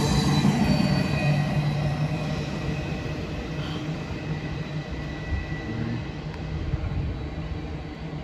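CSX freight train rolling past, a steady rumble of wheels on rail that slowly fades.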